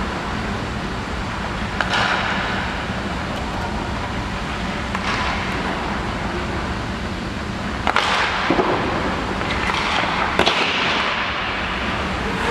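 Ice hockey practice on an indoor rink: a steady background hum with sharp clacks of pucks struck off sticks and hitting pads, posts or boards, and short hissing scrapes of skates on the ice, clustered about two, five and eight to ten seconds in.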